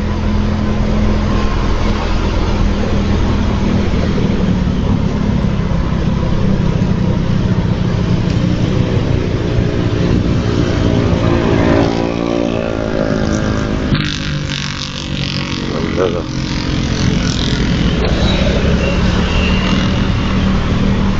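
Motor scooter engine running while riding, under steady wind rush on the microphone. About halfway through, an engine note rises in pitch as speed picks up.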